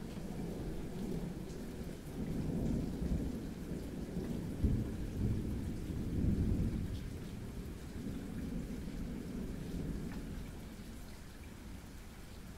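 Rolling thunder over steady rain. The deep rumble swells about two seconds in, peaks around the middle and fades away toward the end.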